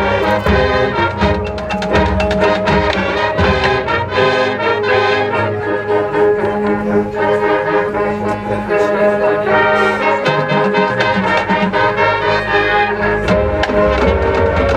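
High school marching band playing, brass section with trombones and trumpets carrying sustained chords over drumline hits.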